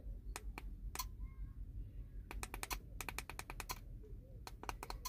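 Clicks of a dash cam's small push buttons pressed by thumb while scrolling through its settings menu: a few single clicks, then quick bunches of several clicks in a row.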